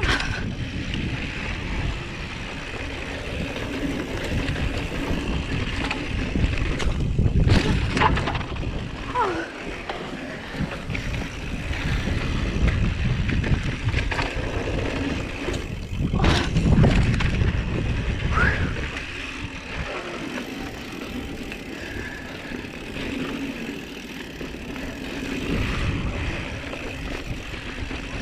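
Mountain bike rolling fast down a dirt trail: steady wind rush on the bike-mounted camera's microphone over tyres crunching on dirt. It is louder and rattles over bumps about eight seconds in and again around seventeen seconds, with a couple of short squeaks.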